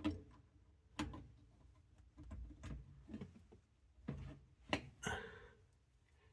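Small clicks and knocks of hard parts being handled as the inlet screen is pushed back into a washing machine's water inlet valve, with a short scrape about five seconds in.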